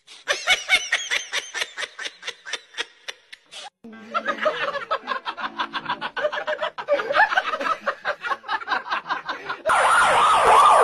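Quick runs of short pulsed sounds, several a second, that break off and start again. About three-quarters of the way through, a husky starts howling: a loud, sustained call whose pitch wavers and slides.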